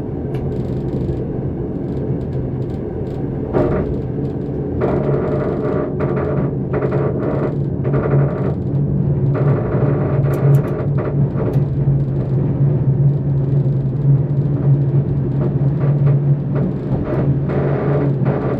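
Electric passenger train running, heard from inside the driver's cab: a steady low hum and rumble, with irregular clattering of the wheels over the track.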